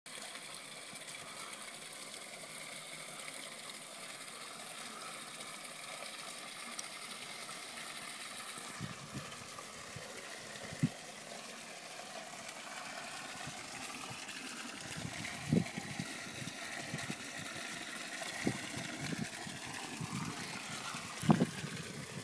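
Water falling as a thin sheet from a spillway into a small pond, a steady splashing trickle. A few short low thumps come in the second half.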